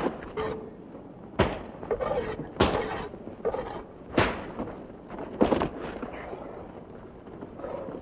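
Sound of a fistfight: about five heavy thuds of blows and bodies hitting things, landing a second or so apart over the first six seconds, with scuffling in between.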